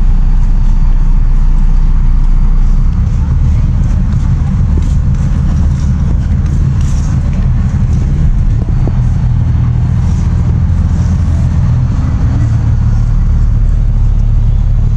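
Motor vehicle running, a steady, loud low rumble of engine and road noise.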